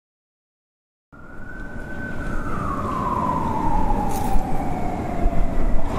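An emergency vehicle's siren wailing, starting about a second in: one slow fall in pitch, then beginning to rise again near the end, over a low rumble.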